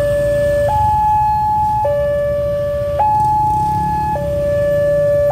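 Railway level-crossing warning alarm on a WANTECH crossing signal, sounding a two-tone electronic warning that alternates between a lower and a higher tone about once a second while the barrier is down for an approaching train. Motor traffic rumbles low underneath.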